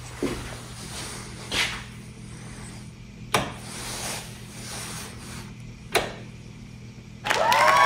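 Wall toggle switch for a shop light flipped twice, a sharp click about three seconds in and another about six seconds in, over a low steady hum. Music starts near the end.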